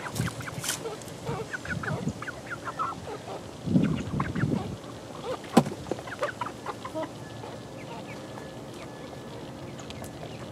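A flock of 11-week-old chickens peeping and clucking in many short calls. A louder, lower burst comes about four seconds in and a sharp click just after halfway, and the calls thin out in the last few seconds.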